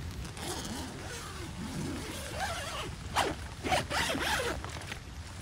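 Zipper being pulled in a few quick strokes, the loudest about three seconds in, after a slower, fainter drag.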